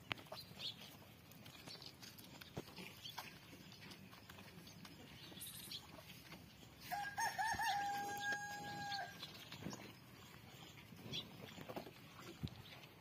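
A rooster crows once, about seven seconds in: a short wavering start, then one long held note of about two seconds. Faint scattered knocks and rustles sound around it.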